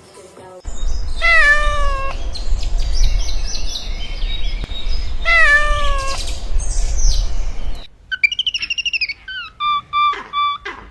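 A cat meowing twice, each meow about a second long and falling in pitch, over a low background rumble with small bird chirps. About eight seconds in, the scene changes to a bird's quick, repeated chirping calls.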